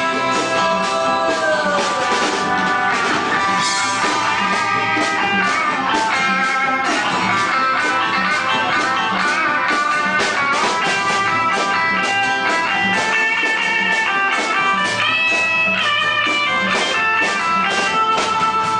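Live rock band playing an instrumental passage between sung verses, with a guitar lead over a steady beat.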